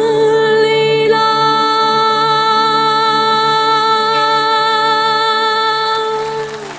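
Closing held note of a Chinese folk song: one pitch sung and sustained over a steady accompaniment, tapering off near the end.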